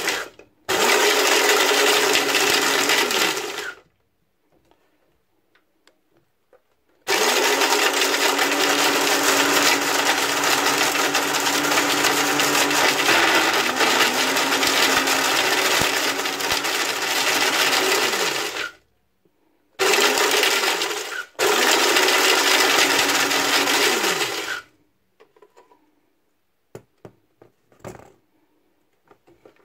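Personal single-serve blender pulsed in four runs, the longest about eleven seconds, the motor whirring as the shredded plastic of ping pong balls rattles around the jar. Each run starts and stops abruptly. A few light clicks follow near the end.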